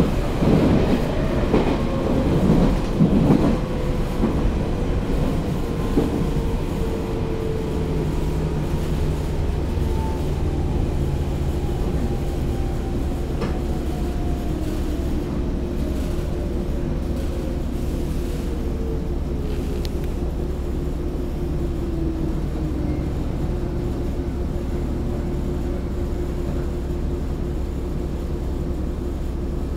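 Electric train heard from inside the carriage, which the uploader takes for a JNR-built 413 series with resistance control, slowing down: its motor whine falls steadily in pitch over about twenty seconds, above a steady low running rumble. Wheels clatter over the rail joints in the first few seconds.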